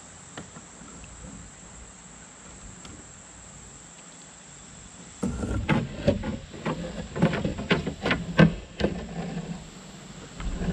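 Fishing reel being cranked to bring in line: a sudden run of clicks and rattles, about two a second over a low whir, starting about halfway in and easing off before a brief return near the end. Before it there is only a steady faint outdoor hiss.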